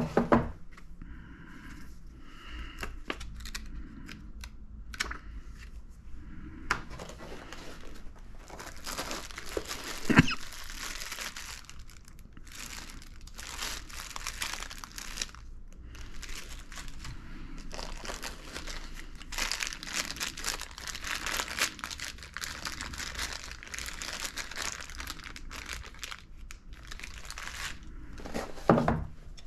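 Plastic packaging crinkling in long rustling stretches as a bagged cable is handled and unpacked, broken by short knocks, with a sharper knock about ten seconds in.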